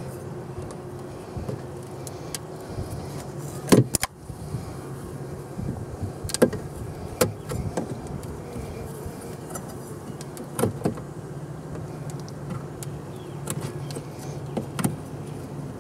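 A steel hive tool prying at the wooden feeder and hive boards, giving a handful of sharp knocks and clicks, over a steady low hum from the honeybee colony in the opened hive.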